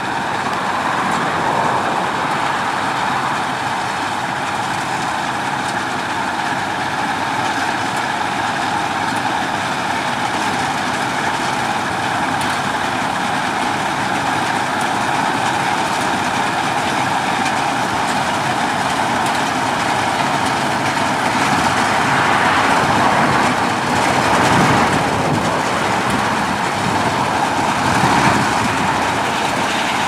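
Classic Massey Ferguson 640 combine harvester running while it cuts wheat: a steady engine and machinery noise that grows a little louder in the last third as the combine comes closer.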